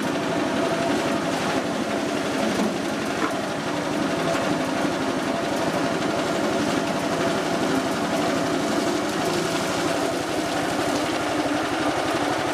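Small petrol engine running steadily with a fast even pulse, belt-driving a soybean splitting and dehulling machine.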